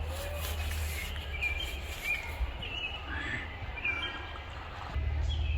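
Several short bird chirps and calls repeating over a steady low rumble.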